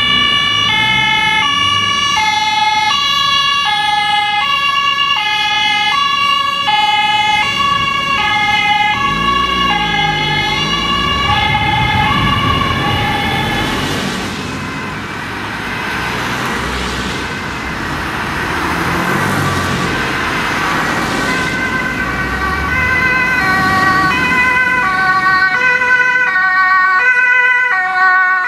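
German two-tone emergency-vehicle sirens (Martinshorn) switching steadily between a high and a low note as the vehicles pass. Midway the sirens are partly drowned by a swell of passing traffic noise, then the two-tone alternation comes back clearly near the end.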